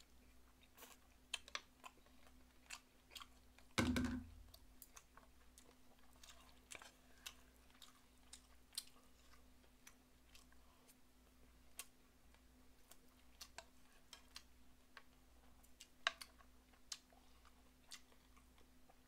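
Close-miked chewing and lip-smacking of a mouthful of fried rice and beef, with scattered small clicks as the utensils scrape the frying pan. One louder knock about four seconds in, over a faint steady hum.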